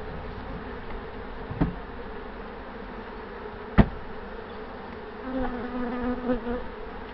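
Honey bees buzzing steadily around an opened hive, with a louder, closer buzz about five seconds in. Two knocks break through, the second one sharp and the loudest.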